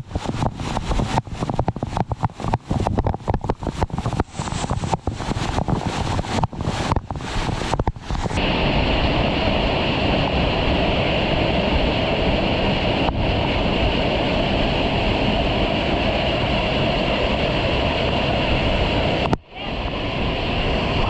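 Rushing water of a waterfall as a steady, even noise, with wind buffeting the microphone in choppy gusts over the first eight seconds or so.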